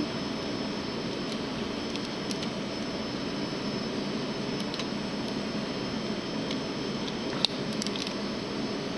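Small clicks and snaps of plastic action-figure parts being moved, as a Combiner Wars Streetwise transforming toy is changed from car to robot mode, with one sharper click about seven and a half seconds in. A steady background hum runs under it.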